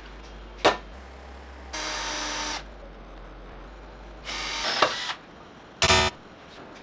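Electric drill running in two short bursts of about a second each as a twist bit drills into a metal square tube clamped in a vise. A sharp click comes before the first burst, and a short low buzz sounds near the end.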